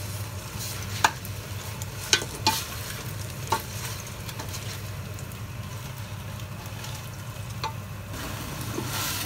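Pork belly sizzling as it browns in an aluminium pot, with a wooden spatula scraping and knocking against the pot about five times as the meat is pushed and turned. The sizzle grows louder near the end, over a low steady hum.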